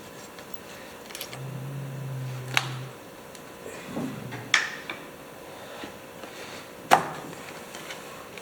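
Sharp knocks and small clinks of a screwdriver on metal as the air-breather hose is worked off an old tractor's carburetor, with three louder knocks, the loudest near the end.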